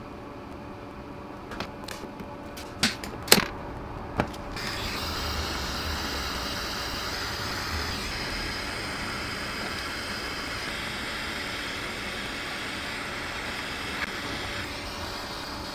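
Hot-staple plastic welder work on a cracked plastic bumper: a few sharp clicks about two to four seconds in, then a steady blowing hiss starts about four and a half seconds in and runs on.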